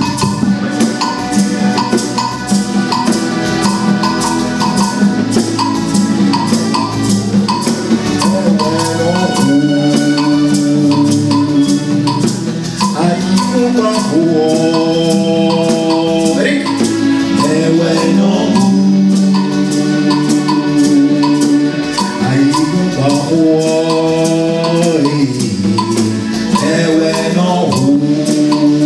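Music: fast, even percussion ticking under a melody of long held notes.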